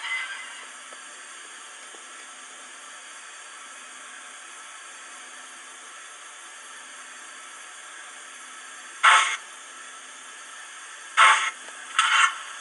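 Steam-locomotive sound from the decoder of an O-16.5 Lynton and Barnstaple Manning Wardle 2-6-2T model: a faint steady hiss while it stands, then short sharp chuffs of exhaust from about nine seconds in, coming closer together as the engine starts away.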